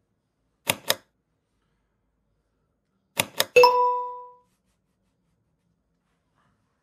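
Two quick sharp clicks, then about two and a half seconds later two more clicks and a third that rings out as a short, clear ding fading within a second.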